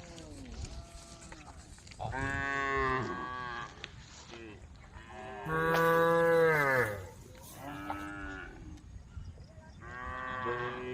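Several cows mooing, one long call after another, each falling in pitch at its end; the loudest moo comes about halfway through.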